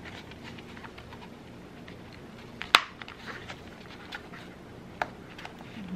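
Handling noise of cork backing being pressed under the plastic tabs of a cheap plastic picture frame: faint scattered ticks, one sharp click about halfway through and a softer one near the end.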